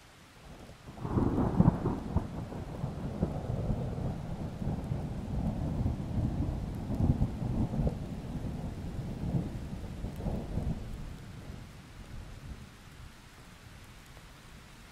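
A long rumble of rolling thunder that swells about a second in, is loudest early on and dies away after about ten seconds, over a faint steady hiss of rain.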